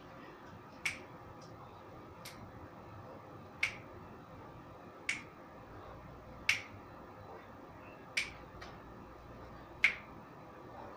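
Finger snaps in a slow, steady beat, one about every second and a half, seven in all.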